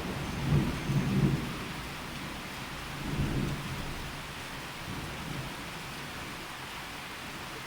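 A sleeping pet snoring: three snores about two and a half seconds apart, each weaker than the last, over a steady hiss of heavy rain.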